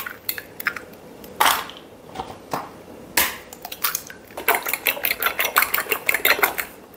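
Eggs being beaten in a bowl for an egg wash: a couple of single knocks, then a quick run of a utensil clinking against the bowl, about seven clinks a second, that stops shortly before the end.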